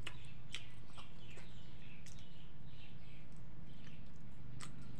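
A man chewing chicken with his mouth, giving a few sharp wet smacking clicks, over a steady low hum and repeated short high chirps.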